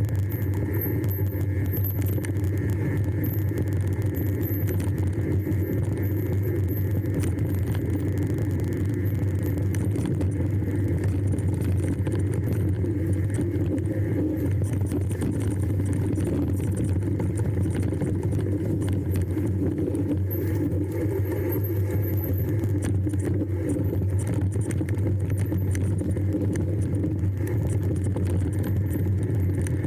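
Steady low drone of a moving road vehicle, with a light jingling rattle over it.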